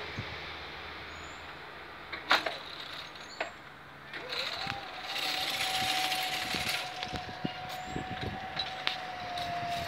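Level-crossing barrier drive whining as the barrier arms rise: a tone that climbs briefly, then holds steady for about five seconds. Two sharp clicks come about a second apart just before it.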